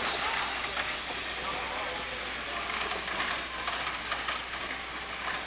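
Sierra Railway No. 28, a 2-8-0 steam locomotive, hissing steam steadily, with a few faint clanks about midway.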